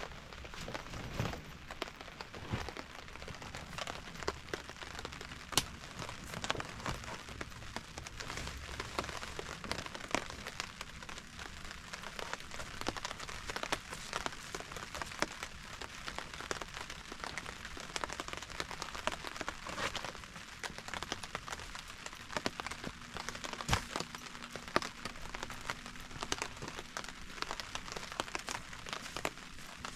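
Steady rain, with many close drops striking a surface as sharp, irregular taps over a continuous hiss.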